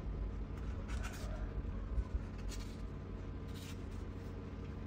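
Newborn kittens shifting and pawing against the cardboard of their box while nursing: three short scratchy rustles over a steady low hum.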